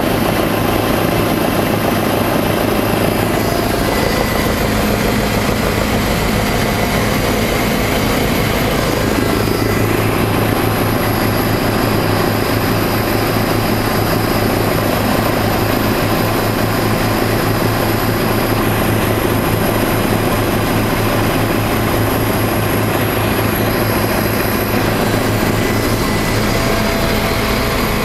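Helicopter engine and rotor noise heard from inside the passenger cabin, loud and steady throughout, with a thin high whine running above it.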